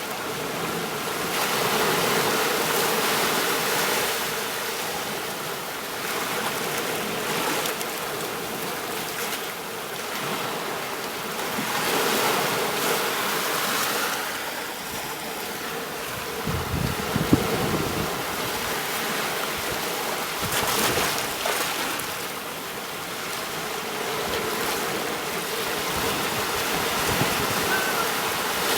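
Ocean waves washing onto a beach, a steady surf hiss that swells and ebbs every few seconds. A brief low rumble comes about two-thirds of the way through.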